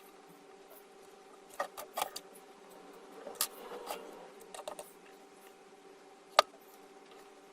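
Scattered small clicks and taps of hand tools and small parts being handled during bench repair work on a load cell, the loudest a single sharp click near the end, over a faint steady electrical hum.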